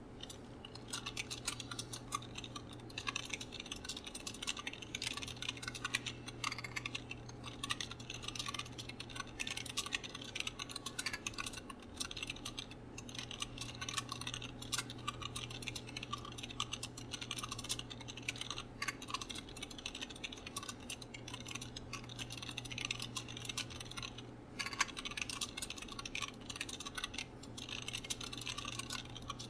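Fast continuous typing on an Armaggeddon Kalashnikov AK-990i membrane keyboard: a dense patter of soft key presses with a brief pause about three-quarters of the way through, over a steady low hum.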